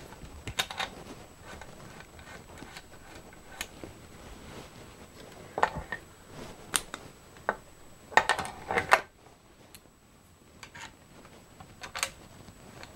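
Scattered clicks and clacks of the metal parts of a Belgian M1871 Comblain rifle's brass-framed falling-block action being handled and refitted, with a brief cluster of clatter about eight seconds in.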